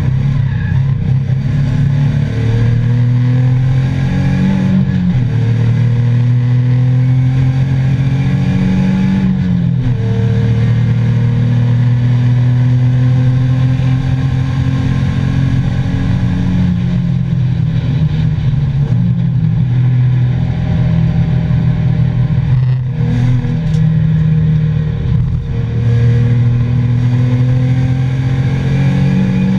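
A 2003 Nissan 350Z's 3.5-litre V6, heard from inside the cabin, running hard at racing pace. Its note rises in pitch several times and drops back sharply between the rises, as the car accelerates and shifts up through the gears.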